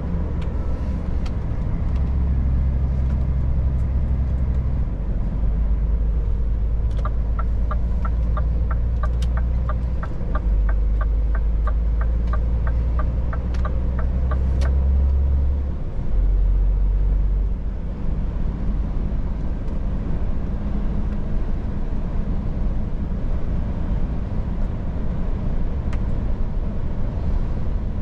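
Scania S500 truck's diesel engine running under a low rumble heard from the cab, its level stepping up and down several times. For about eight seconds in the middle, the turn-signal indicator ticks about two to three times a second.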